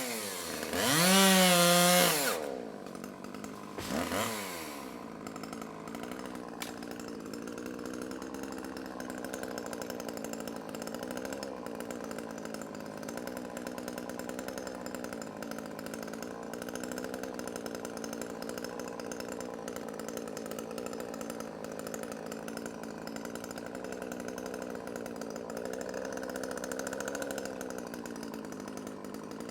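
Chainsaw engine revving hard, dropping back about two seconds in, giving one short blip of throttle, then running steadily at a low, even speed.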